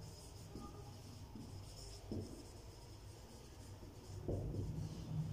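Marker pen writing on a whiteboard: faint, short scratching strokes as words are written, over a low steady room hum.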